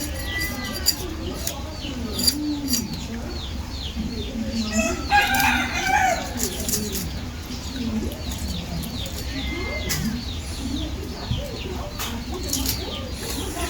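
A rooster crows once, about five seconds in, over a constant chatter of short, repeated chirps from small birds.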